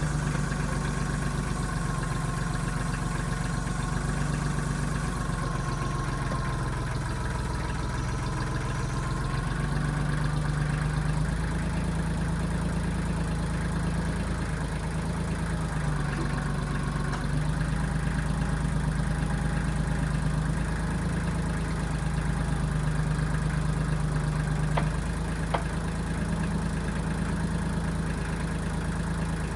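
1995 Kubota backhoe's diesel engine running steadily, its pitch stepping slightly up and down every few seconds as the load changes.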